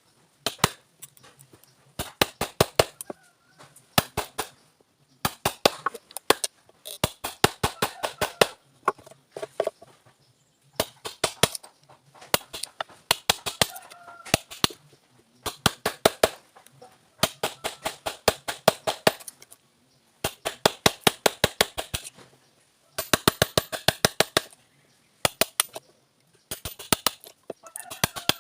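Hammer blows on a wood chisel, cutting a mortise into a door frame by hand: quick runs of sharp strikes separated by short pauses.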